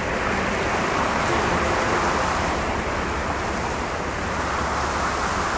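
Sea surf: a steady wash of waves with a gentle swell.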